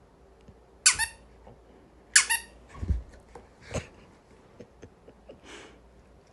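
A dog's squeaky toy being squeezed by a giant schnauzer: a sharp high squeak about a second in, then a quick double squeak a second later. After them comes a dull thump and softer clicks and scuffing.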